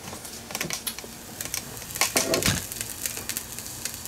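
Kitchen clatter as cookware is handled: a scatter of short clicks and knocks, with a louder cluster and a dull knock about two and a half seconds in.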